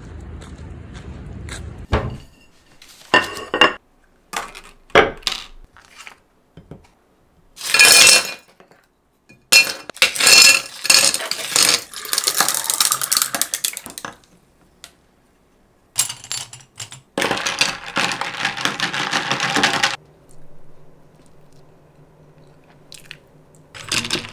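Making an iced coffee: a few sharp clinks of glass and ice, then water poured from a plastic pitcher into a tall glass full of ice cubes in several pours, the longest running about four seconds. A second long pour follows, and a spoon clinks in the glass near the end.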